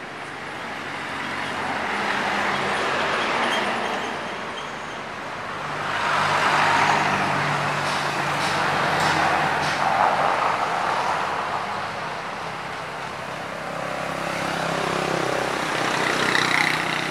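Road traffic on a street: several motor vehicles passing one after another, each swelling and fading.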